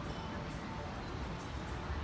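Background music with a steady outdoor street hum underneath.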